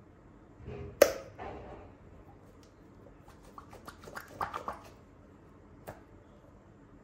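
Soft rubbery squishy toy stretched wide and let go, snapping back with one sharp slap about a second in. A few seconds later the toy is squeezed and handled with a quick run of small squishy clicks and smacks, and one more click near the end.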